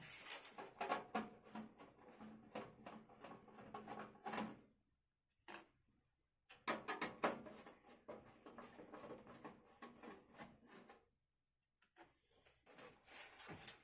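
Small clicks and rattles of plastic and metal PC case parts being handled, the drive tray being worked loose. They come in stretches, with short pauses about five and eleven seconds in.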